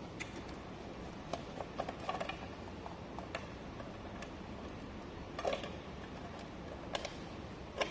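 Scattered light clicks and taps of plastic parts as the waterproof cover over a smart toilet's mainboard housing is taken apart by hand.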